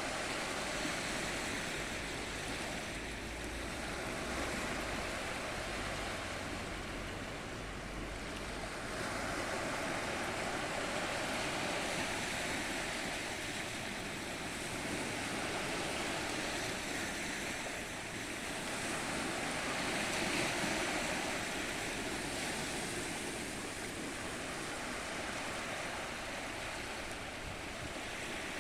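Ocean surf: waves breaking and washing in, the rush swelling and easing every several seconds.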